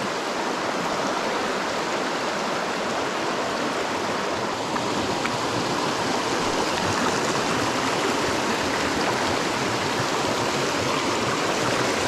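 Small mountain brook running over rocks and little cascades: a steady, even rush of water.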